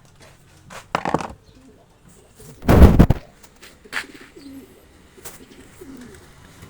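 A bird cooing in short low calls, with a short burst about a second in and a loud thump about three seconds in.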